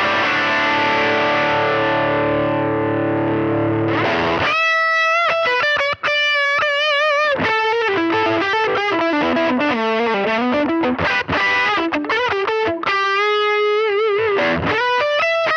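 Electric guitar played through the Fractal FM9's USA Subway Blues amp model (based on the Boogie Subway Blues combo) and a 1x10 Metro Blues DynaCab, in a lead tone. A held, ringing chord gives way about four and a half seconds in to a single-note lead line with bends and wide vibrato.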